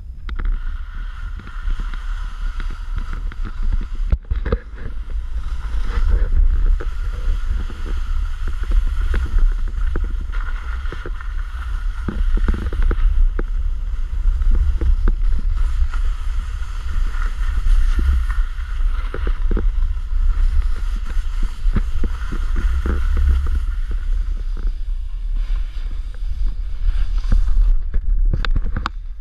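Wind rumbling and buffeting on an action camera's microphone during a snowboard run, over the steady hiss of a snowboard sliding on snow, with frequent short scrapes and clatters.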